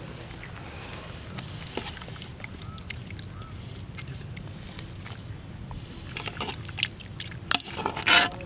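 Soft clicks and rustles of people eating and serving curry by hand off leaf plates, over a steady low rumble of wind on the microphone. A louder rustling burst comes near the end.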